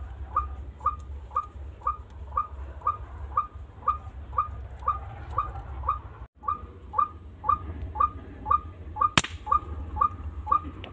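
White-breasted waterhen calling, a short falling note repeated very evenly about twice a second. A single sharp crack comes about nine seconds in.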